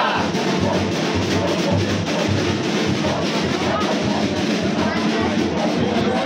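Loud drum-heavy music with repeated low beats, with voices underneath.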